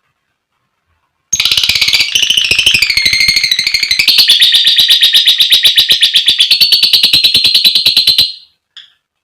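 Female lovebird's long "ngekek" call: a fast, harsh chattering trill of about eight or nine sharp notes a second, held for about seven seconds, wavering in pitch at first and then steady, ending with one short chirp.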